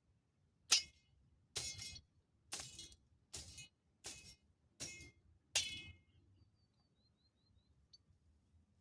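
Seven sharp, ringing clinks, a little under a second apart, the first and last the loudest. Near the end comes a faint run of short high chirps.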